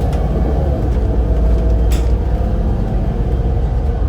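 Volvo B7RLE bus's diesel engine and ZF Ecolife automatic gearbox under way: a steady low rumble with a wavering whine, and a sharp click about two seconds in.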